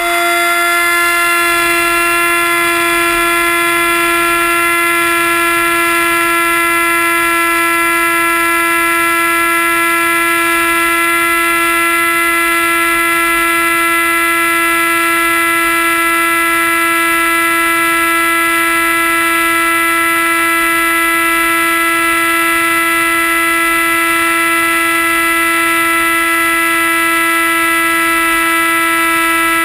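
RC flying wing's motor and propeller running at full throttle, a loud steady whine with many overtones, heard from a GoPro mounted on the plane. The pitch holds nearly level and drifts only slightly lower through the flight.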